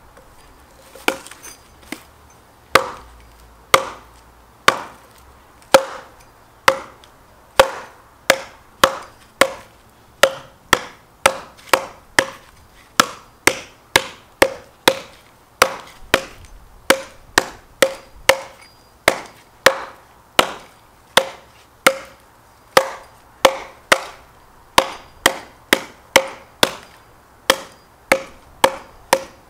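Estwing one-piece steel hatchet chopping into a thick log: a run of sharp blows, about one a second at first and quickening to about two a second, each with a brief ringing note.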